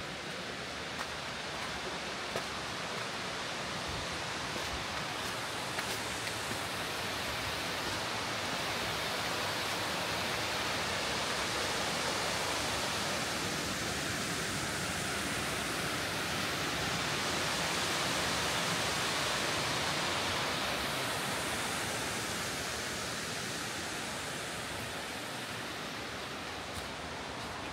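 Rushing water, a steady hiss that swells louder in the middle and eases off again toward the end.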